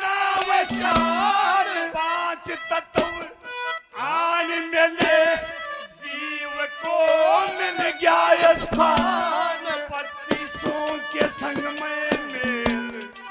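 Male singer singing a Haryanvi ragni in long, bending, held phrases, backed by steady instrumental tones and scattered hand-drum strokes.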